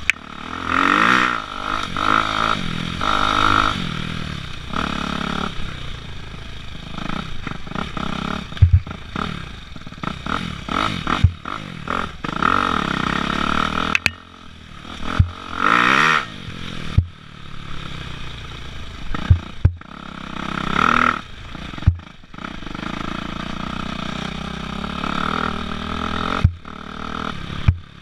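Dirt bike engine revving up and down again and again as the throttle is worked, heard from on board the bike, with several sharp knocks.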